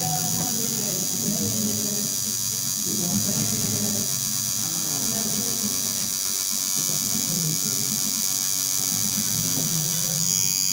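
Cartridge tattoo machine buzzing steadily as the needle works the lines into the skin.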